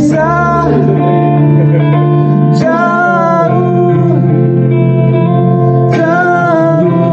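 Music: a song with a sung melody over plucked guitar, new phrases starting about every three seconds.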